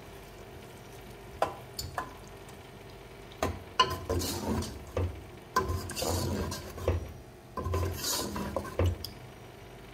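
Metal ladle stirring a thick potato-and-pea curry in a metal cooking pot: wet sloshing with clinks and scrapes of the ladle against the pot. Two single clinks come about a second and a half and two seconds in, and steady stirring runs from about three and a half seconds until just before the end.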